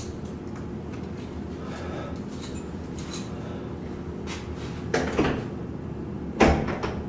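Keys clattering and a door handle being rattled and knocked in a series of short, uneven clicks and bangs, the loudest near the end, as a jammed door is tried.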